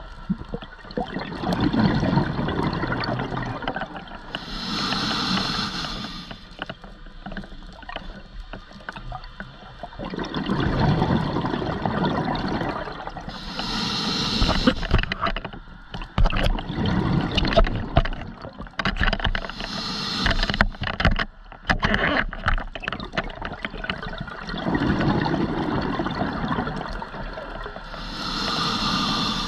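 Scuba diver breathing through a regulator: a sharp hiss of each inhale followed by the low rumbling gurgle of exhaled bubbles, four breaths about nine seconds apart, with small clicks in between.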